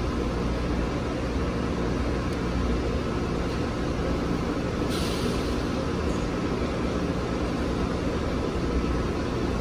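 Steady low mechanical drone of running equipment, with a constant low hum and no change in level, and a brief faint scrape about five seconds in.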